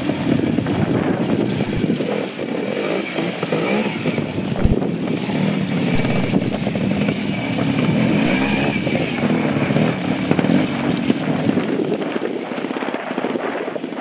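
Classic trials motorcycle engine pulling a rider up a rough section, the revs rising and falling as the throttle is worked. A single low thump comes about a third of the way through.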